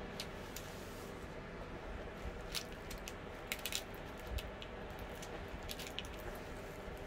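Clear plastic cover film on a diamond painting canvas crinkling faintly as it is peeled back from the sticky surface, with a few sharp crackles a little past halfway through.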